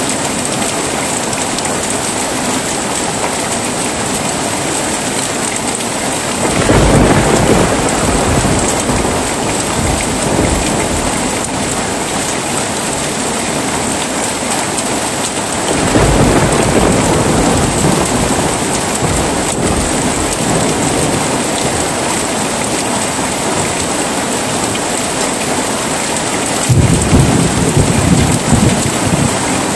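Heavy rain falling steadily, with thunder rumbling three times: about a quarter of the way in, around the middle, and near the end.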